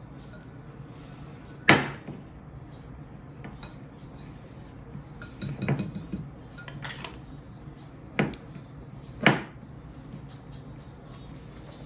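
Kitchenware clinking and knocking: about five sharp knocks of bowls and utensils, spread unevenly, the loudest about two seconds in and about nine seconds in, over a low steady hum.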